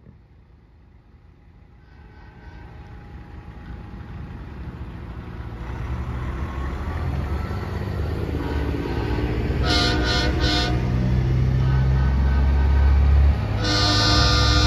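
A diesel semi-truck approaches, its engine rumble growing steadily louder. It sounds its air horn in a few short blasts about ten seconds in, then a longer blast near the end.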